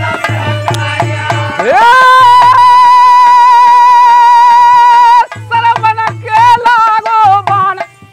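Indian folk devotional singing to a dholak: the male lead voice slides up about two seconds in and holds one long, loud high note for about three and a half seconds while the drum stops, then the dholak strokes return under wavering sung phrases.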